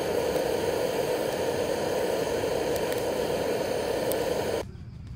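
Handheld electric fire starter blowing hot air into a stove full of dry twigs to light them: a steady, loud rushing hiss that cuts off suddenly near the end.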